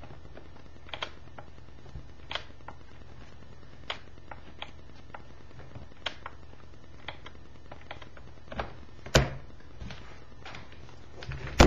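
Scattered light clicks and taps from a laptop and its charger plug being handled, with one sharper click about nine seconds in, over a steady low hum.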